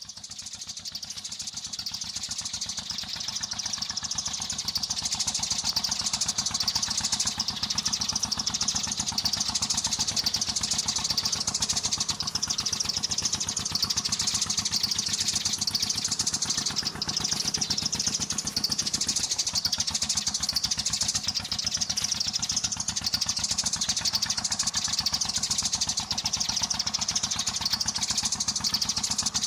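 Dense, continuous chatter of many sparrows chirping at once, fading in over the first few seconds.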